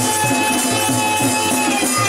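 Folk music with a shaken rattle keeping a steady beat under a quick repeating melodic figure and a held tone.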